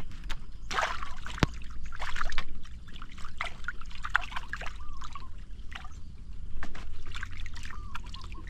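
Water splashing and trickling in irregular small splashes, the kind made by a hooked tilapia being brought in and landed. A single sharp click comes about one and a half seconds in.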